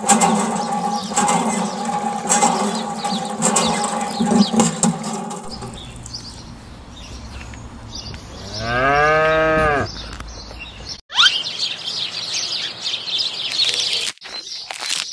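A steady pitched hum with clicks for the first few seconds, then a single long cow moo about two thirds of the way through, rising and then falling in pitch. A quick rising swish and a stretch of rustling hiss follow near the end.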